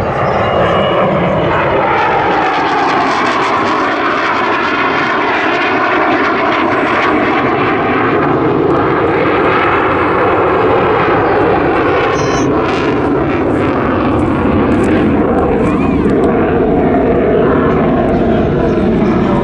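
F/A-18 Hornet fighter jet flying overhead: loud, steady jet-engine noise whose pitch slowly sweeps down and back up as the aircraft moves across the sky.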